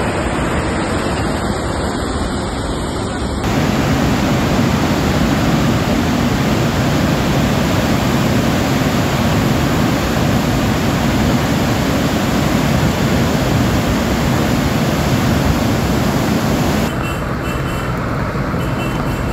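Teesta river in flash flood: a loud, steady rush of muddy floodwater. The tone of the rush changes abruptly about three seconds in and again near the end.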